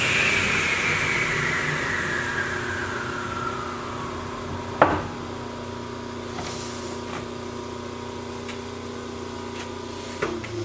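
Table saw spinning down after being switched off, its whine falling steadily in pitch and fading over about four seconds. A single sharp knock comes about five seconds in, and a steady low hum runs underneath.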